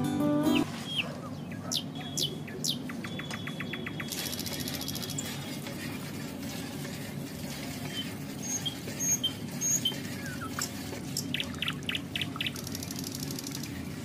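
Birds chirping, with short calls, quick sweeps and rapid trills scattered throughout, over a steady low background hum.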